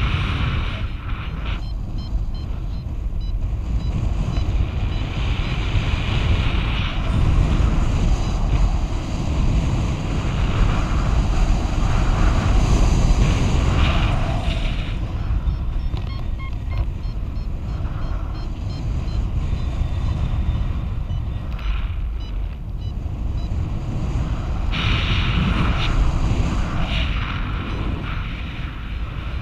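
Wind rushing over an action camera's microphone on a flying paraglider: a steady low rumble that swells and eases with the airflow.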